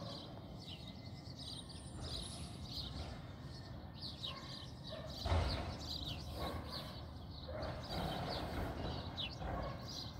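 Small birds chirping, short high falling chirps about twice a second, over a low outdoor rumble, with a single knock about five seconds in.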